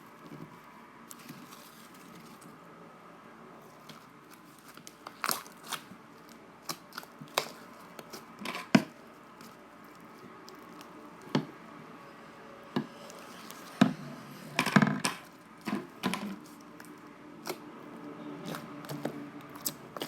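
Fluffy slime being squished and pulled by hand, giving irregular sharp pops and crackles with quiet stretches between them.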